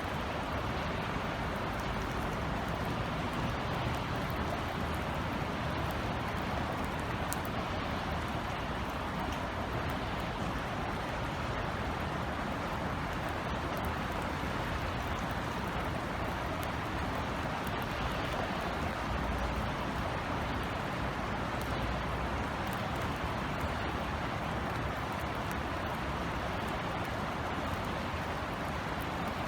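Steady summer drizzle falling, an even hiss with scattered faint drop ticks, over a low rumble of distant city traffic.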